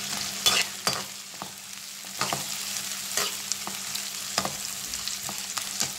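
Sliced onions sizzling steadily in hot oil in a metal pan while a slotted metal spatula stirs them, scraping and clinking against the pan several times.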